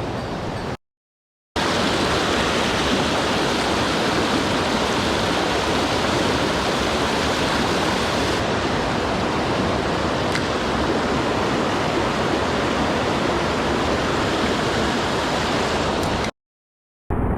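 Rushing mountain stream, a steady roar of water over rocks, broken by two short gaps of dead silence about a second in and near the end.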